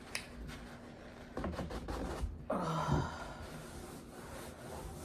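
Soft rustling and a few mouth clicks, then about two and a half seconds in a short wordless vocal sound from the eater, a brief hum-like exhale.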